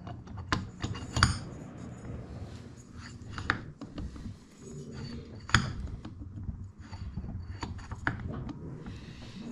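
Metal parts clicking and knocking as a pulley is handled and fitted onto a Tuff Torq K46 transaxle's input shaft: a handful of short sharp clicks, the loudest about five and a half seconds in.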